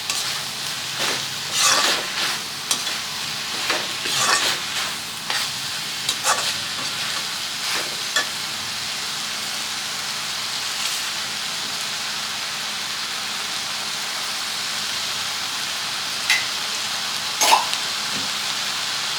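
A pepper, garlic, onion and tomato mixture sizzling in oil in a kadai. A spatula stirs and scrapes the pan repeatedly through the first half, then the sizzle runs steadily, with a couple of scrapes near the end. The mixture is being sautéed until soft.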